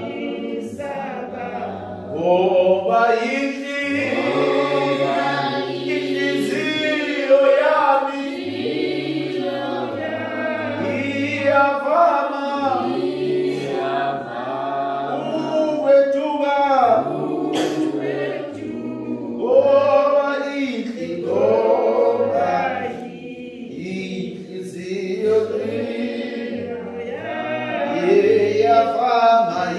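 Church congregation singing a hymn together in chorus, unaccompanied voices, with a few sharp clicks here and there.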